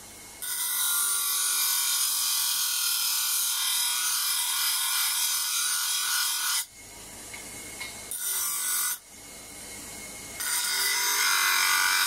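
A rusty steel piece is ground against the spinning sandpaper disc of a homemade disc sander driven by a washing-machine motor, throwing sparks. It makes a loud, high, rasping hiss in three passes: a long one of about six seconds, a short one of about a second a little past the middle, and another starting near the end. Between the passes the motor's faint hum is left.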